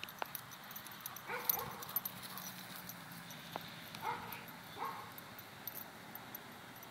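A dog moving about on grass, with a few faint short yips about one and a half, four and five seconds in.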